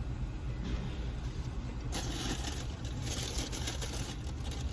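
Steady low rumble of an idling car, with crinkling and rustling of a plastic takeout container starting about two seconds in.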